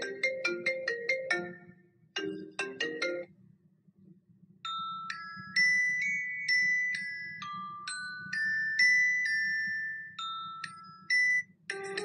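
Ringtone previews playing from a smartphone as the list is scrolled. A marimba-like tune plays, breaks off and plays again briefly. A different chiming melody of single held high notes follows from about four and a half seconds in, and another tune starts right at the end. A steady low hum runs underneath.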